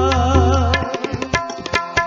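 Sikh shabad kirtan: tabla strokes under held harmonium notes, with a wavering sung line in the first second. The deep bass drum tone drops out just under a second in, leaving lighter tabla strokes.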